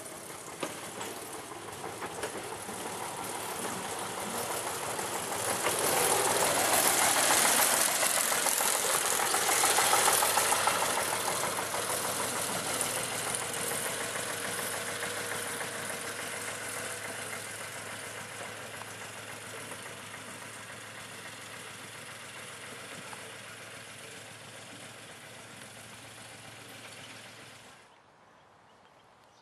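Small narrow-gauge diesel locomotive's engine running as it approaches, passes close by, and moves away. The sound swells to its loudest about a third of the way in, then slowly fades, and drops off sharply near the end.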